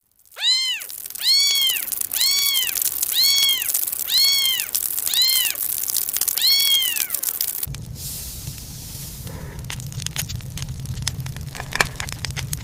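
A cat meowing seven times, each meow a short call that rises and falls in pitch. About two thirds of the way through the meows stop and a steady low rumble with scattered crackles takes over.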